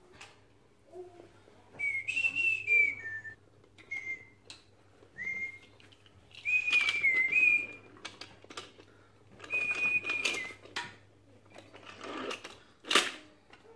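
A person whistling a few short, wavering notes in broken phrases, amid light clacks of wooden toy train track pieces being handled and fitted together, with one sharp wooden clack near the end.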